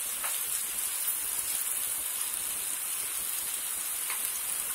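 Chicken pieces sizzling in oil and spice paste in a pan, a steady even hiss with a couple of faint pops. This is the bhuna (kosha) stage, frying the chicken in the masala.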